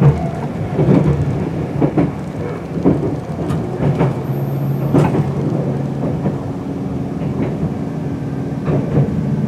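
Meitetsu μSKY limited express heard from inside the passenger car as it runs into a station: rumble with wheels knocking over rail joints about once a second, the knocks thinning out as the train slows, and a steady low hum setting in about halfway as it comes to a stop.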